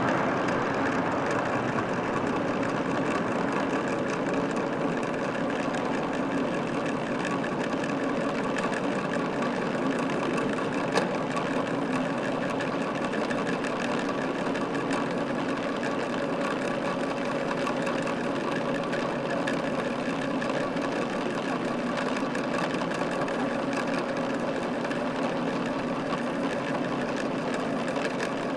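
Steady drone of a Boeing 747-400 freighter's four jet engines: a few steady tones over an even rush, easing off slightly in level.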